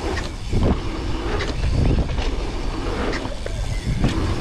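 A mountain bike rolling fast down a dirt trail: steady wind buffeting on the handlebar camera's microphone and tyre noise, with knocks and rattles from the bike as it goes over bumps.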